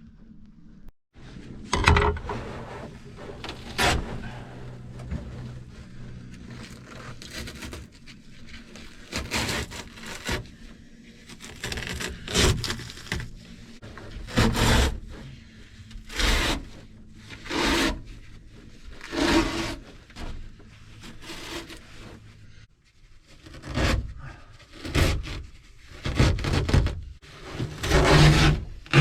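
Carpet lining being pulled and scraped off a fibreglass boat cabin's headliner, in irregular rasping strokes every second or two.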